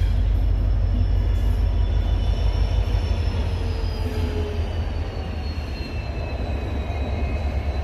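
Passenger train of the Surat–Muzaffarpur Express rolling past, a steady heavy rumble of coach wheels on the track. Thin high whines slide slowly lower through the second half as the last coaches go by.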